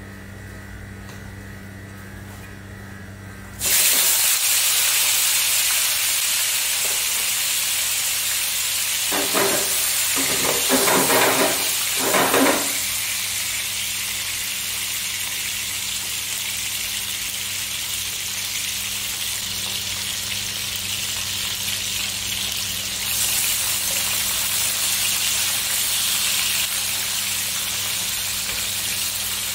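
Tilapia pieces going into hot oil in a nonstick wok: the oil bursts into a loud sizzle about four seconds in and keeps sizzling steadily as the fish fries. Three short pitched sounds come about nine to twelve seconds in.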